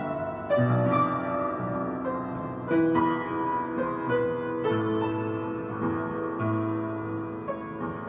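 Piano-led instrumental music in a slow ballad: chords and melody notes struck about once a second over sustained bass notes.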